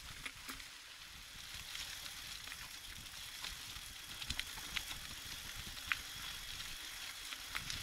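GT Zaskar 100 Carbon Team mountain bike rolling along a paved road: a steady tyre hiss with scattered irregular clicks and ticks, over a low, uneven rumble of wind on the microphone.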